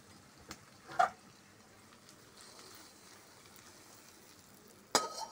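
Faint sizzling of cooked fish chorchori in an aluminium kadai just after the gas burner is turned off, with a metal clank about a second in and a sharp scrape of a spatula against the pan near the end as serving begins.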